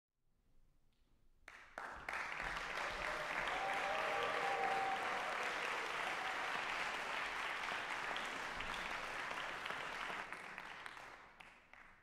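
Audience applauding, starting about a second and a half in and dying away near the end.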